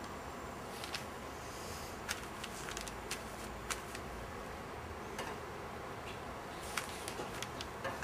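Steady room hiss with a dozen or so light, sharp ticks and taps scattered through it: the small handling noises of an ink brush and paper during sumi-e painting.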